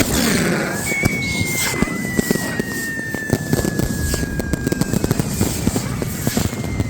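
Fireworks going off: a dense run of sharp pops and crackles throughout, with a long thin whistle from about a second in that drifts slowly down in pitch for about four seconds.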